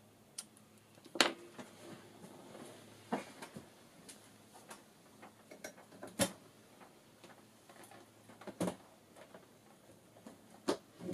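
Small craft scissors snipping twine, followed by scattered taps and knocks of scissors and craft supplies being handled and set down on a table, the loudest about a second in.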